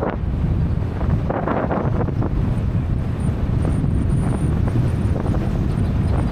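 Wind buffeting the microphone: a heavy, steady low rumble with scattered crackles, and a faint high whine from a few seconds in.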